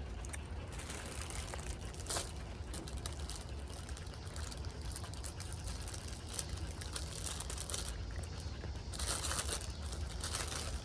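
Plastic snack wrapper crinkling as a package is handled and opened, busiest near the end, over a low steady hum.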